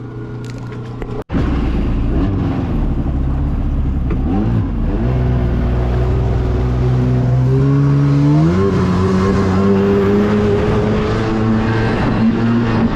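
1995 Kawasaki jet ski's two-stroke engine running at speed, cutting in sharply just after a second in, then revving up in two steps, about four and eight seconds in, before holding a steady pitch.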